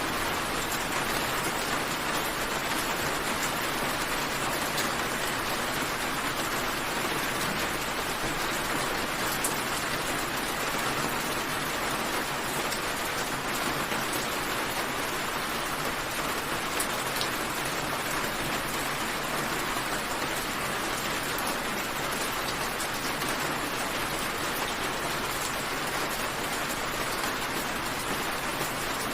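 Steady rain falling, an even patter with occasional single drops ticking.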